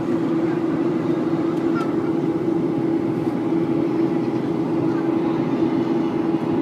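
Steady drone of a Boeing 737's turbofan engines at climb power, heard inside the passenger cabin, with a strong, even low hum running under the noise.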